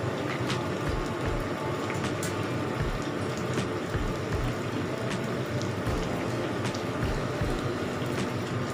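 Battered vegetable fritters deep-frying in a wok of hot oil: steady sizzling with small scattered crackles and pops. The fritters have been turned once and are nearly done.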